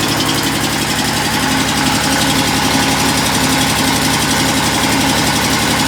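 Machinery running steadily with a fast, even low throb.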